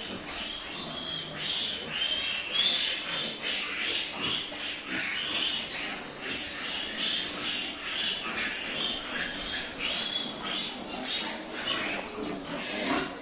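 Pigs squealing, many high calls overlapping without a break.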